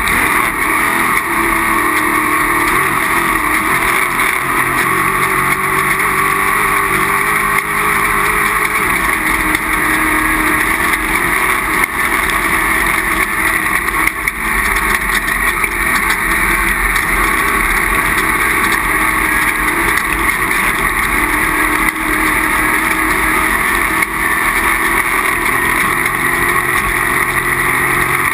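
Off-road race vehicle's engine running hard under way, its pitch wavering up and down as it rides the throttle, over a constant rush of wind and ride noise.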